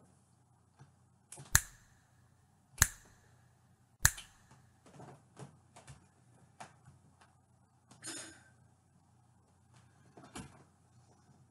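Three loud, sharp snaps about a second and a quarter apart, followed by fainter clicks, a short rustle about eight seconds in, and one more snap near the end.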